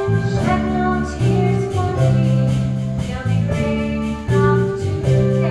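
Live band playing a slow instrumental introduction to a musical-theatre ballad, a plucked-string instrument picking out chords that change about once a second.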